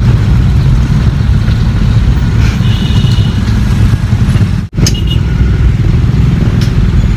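Steady low rumble of a car driving on the road, engine and road noise, breaking off abruptly for a moment partway through.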